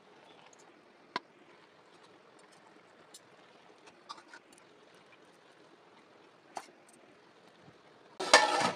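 A few light clicks of metal utensils against a steel pot and plate as cooked chicken leg pieces are lifted out of rice. The sharpest click comes about a second in, and a louder noisy burst starts just before the end.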